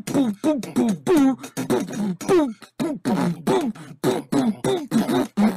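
A voice chanting a syllable like 'boom' over and over, about three times a second, each syllable sliding down in pitch, like vocal beatboxing.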